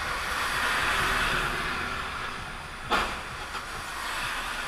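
Steady hiss of tyres on a rain-wet road heard from inside a car, with a single sharp thump about three seconds in.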